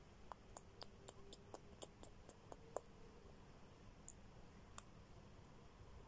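Faint, soft clicks at the budgerigar's beak as a finger strokes its head: about a dozen over the first three seconds, roughly four a second, then two more near the end.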